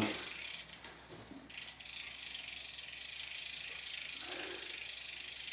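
Bicycle rear hub's freewheel pawls clicking in a fast, steady ratchet as the cranks are back-pedalled, settling in about two seconds in after a brief lull.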